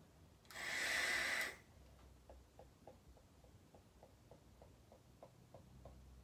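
A person vaping from two mods at once draws one forceful breath of about a second through the vapes' airflow, close to the microphone, before blowing out a big cloud. It is followed by faint, even ticking, about three ticks a second.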